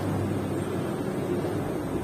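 An engine running steadily: an even low hum under a rushing noise.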